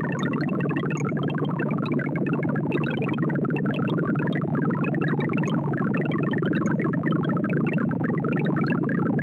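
ArrayV sorting-algorithm sonification: a rapid, dense stream of very short synthesized beeps. Each beep's pitch follows the value of the array element being compared or written, so the pitches jump about constantly as the sort works through 512 numbers.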